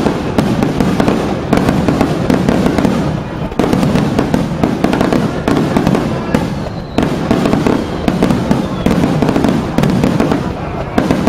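Aerial fireworks shells bursting in rapid, near-continuous succession, a dense run of booms and crackles with a heavy low rumble.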